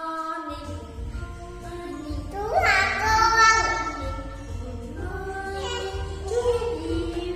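A young child singing a children's song over a music backing track with a steady low beat; the loudest stretch, about two and a half seconds in, is a higher sung phrase.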